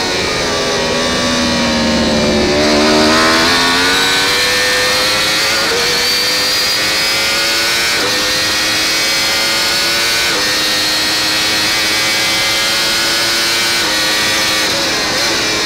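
Yamaha YZF-R1 inline-four race engine on full throttle: its note dips out of a corner, then climbs steadily up the straight through several quick upshifts, each a short drop in pitch, about every two to three seconds. Wind rushes over the bike throughout, and the engine note breaks up near the end as the rider shuts off.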